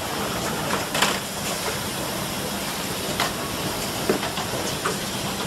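Automatic inline screw-tightening line for TV assembly running: a steady machine hiss and low hum with a few sharp clacks at irregular intervals.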